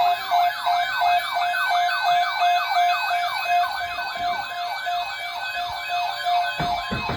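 Electronic emergency alert siren: a fast falling yelp, about three to four sweeps a second, over a beep that pulses about twice a second. It fades out near the end, where a few sharp clicks come in.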